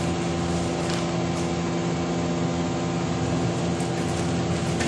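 Steady machine hum with several constant tones, under an even hiss of water spraying from a handheld shower head into a stainless-steel sink.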